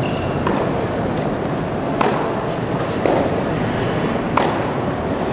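Tennis ball struck by rackets and bouncing on a hard court in a practice rally: a string of sharp pops, the three loudest in the second half, over steady background noise of a large hall.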